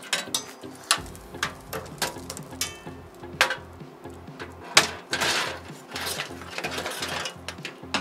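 Clicks and knocks of a be quiet! power supply and its sleeved cables being handled and set into a computer case, with the loudest knock nearly five seconds in and a brief rustle of cables after it. Background music with a steady bass beat runs underneath.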